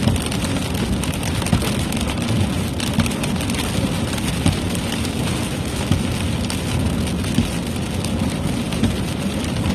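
Heavy rain pelting a car while it drives, heard from inside the cabin, over a steady low road and engine rumble.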